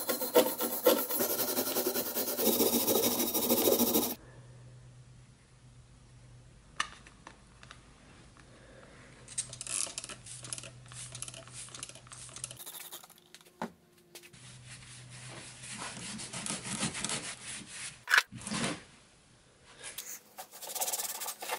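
Hand wire brush scrubbing hard across the rusted steel head of an axe, a harsh scratching for about the first four seconds. After that come quieter patches of rubbing and handling as the head is washed, over a faint steady hum.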